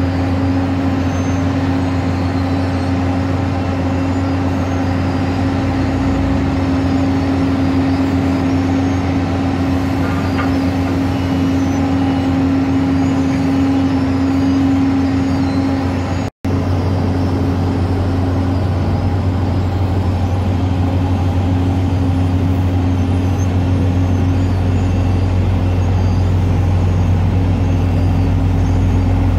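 Heavy diesel road-paving machinery, an asphalt paver fed by a tipper truck, running steadily with a constant engine hum. The sound cuts out for an instant about halfway through, then the drone carries on with a deeper hum.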